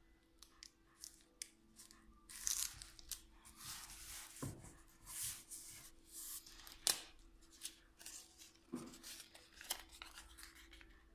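Adhesive tape being pulled and torn in several rasping rips, with sharp clicks and rustling as it is handled and pressed onto fibreglass mesh.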